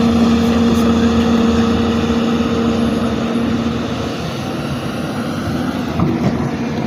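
Excavator's diesel engine running steadily with a constant hum while digging, easing off a little about four seconds in.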